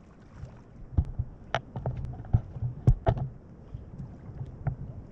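Water sloshing and splashing close to the microphone over a low rumble, with a scattered run of short, sharp splashes or knocks; the loudest come about a second and a half in and again around three seconds in.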